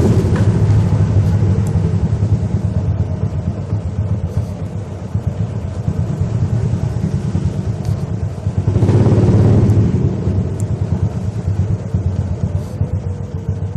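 Motorcycle engine running at low speed, swelling louder for about a second around nine seconds in, then easing off.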